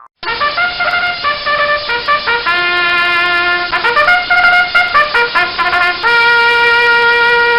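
A short trumpet tune used as a sound effect: a run of quick notes with one longer low note in the middle, ending on a long held note.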